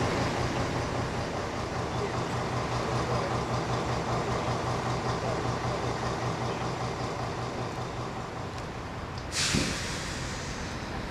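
Heavy diesel engine running steadily with a low hum. A short, sudden hiss comes about nine seconds in and fades quickly.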